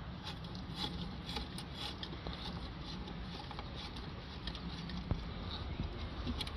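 Faint clicking and scraping of a ratchet with an 8mm socket undoing a small bolt on the exhaust back-pressure sensor bracket, scattered small ticks over a low steady background rumble.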